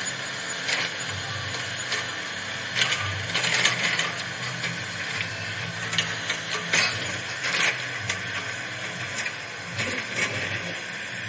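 Toy RC excavator's small electric gear motors whirring and ratcheting in short irregular spurts as it works its arm and tracks, over a steady motor hum.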